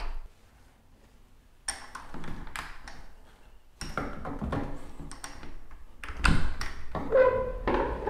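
Pocket door and its Kwikset 335 privacy lock being worked by hand: a series of separate clicks, taps and thunks as the latch and turn are operated and the door is slid against its frame.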